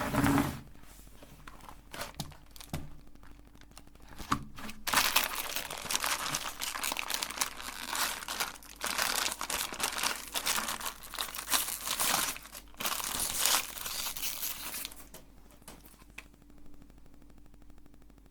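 Plastic ice cream wrappers being crinkled and torn open, irregular crackling that gets loud and busy after about five seconds and dies down near the end.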